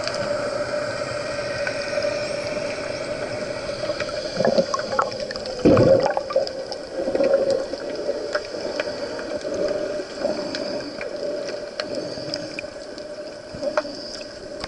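Underwater sound of dolphins: scattered sharp clicks over a steady hum, with louder gurgling bubble bursts about four to seven seconds in.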